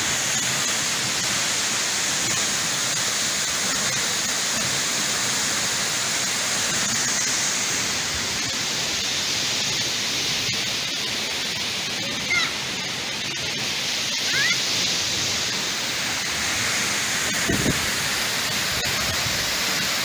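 Waterfall rushing: a steady, unbroken wash of falling water, with a couple of short high chirps over it about twelve and fourteen seconds in.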